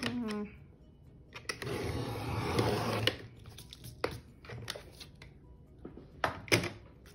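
Sliding paper trimmer's blade carriage drawn down the rail, cutting through patterned paper in one noisy sweep of about a second and a half. Then several light clicks and taps as the trimmed slivers and the page are handled.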